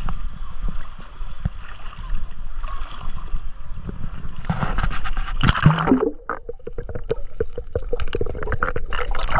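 Small waves lapping in shallow seawater with wind buffeting the microphone, and a louder burst of noise a little after halfway.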